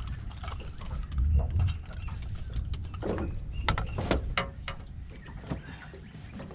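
Knocks, clicks and clatter against an aluminium boat's hull and floor as a freshly caught whiting is unhooked and handled, thickest about three to four seconds in. A low rumble of wind on the microphone swells about a second in.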